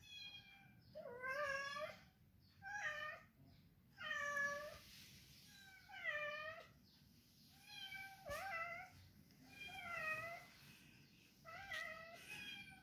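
Domestic calico cat meowing over and over, about eight meows each dropping in pitch at the end, a call every second and a half or so: insistent meows asking for help.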